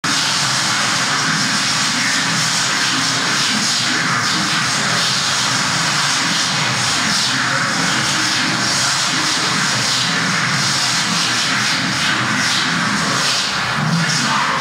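A loud, steady rushing noise, spread evenly from low to high pitches, with no clear tones or rhythm.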